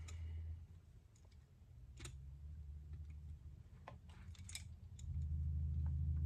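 Soft-jawed pliers working a metal bracket hook and nut on a banjo rim, giving a few scattered small metallic clicks. A low steady hum underneath grows louder about five seconds in.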